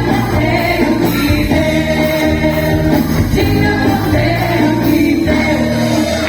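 Women's choir singing a Christian song over instrumental accompaniment with sustained bass notes.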